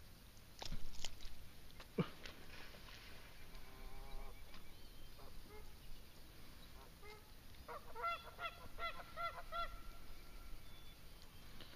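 Geese honking: a quick run of about six calls near the end, with fainter calls earlier. Two sharp knocks, about a second in and again a second later.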